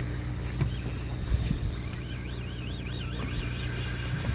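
Steady low drone of a fishing boat's engine. About two seconds in, a faint high tone warbles up and down for nearly two seconds.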